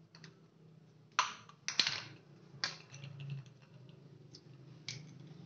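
Sharp plastic clicks and knocks from PVC pipe fittings being handled during a ball valve replacement, a handful of separate strokes with the loudest about two seconds in, over a low steady hum.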